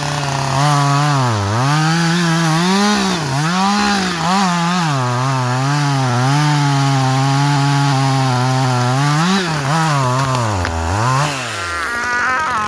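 Two-stroke chainsaw cutting into a basswood tree at high revs. Its pitch sags briefly several times as the chain bites under load, then falls away near the end as the throttle is let off.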